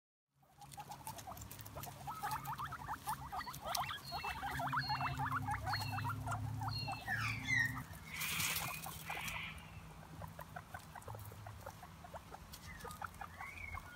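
Guinea pigs squeaking in rapid runs of short squeaks, with a brief rustle about eight seconds in, over a low steady hum.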